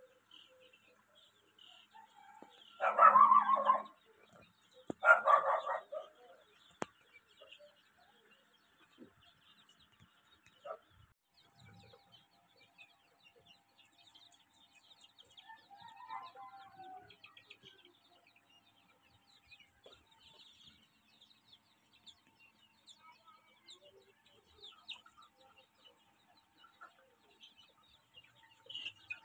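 A flock of 22-day-old Sonali chicks peeping faintly throughout, broken by two loud chicken calls about a second long each, around three and five seconds in.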